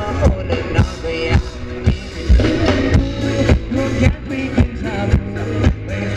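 Live Thai ramwong band music: a steady drum beat, just under two beats a second, under a melody.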